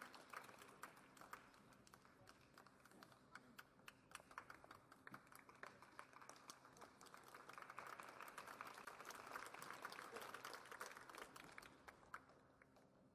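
Faint, scattered clapping from tennis spectators, many irregular claps over a low crowd murmur. The claps thin out and stop about twelve seconds in.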